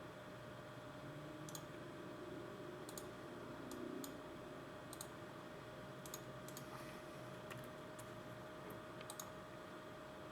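Scattered sharp clicks, about a dozen at irregular intervals, of a computer mouse and keyboard in use, over a steady faint hum.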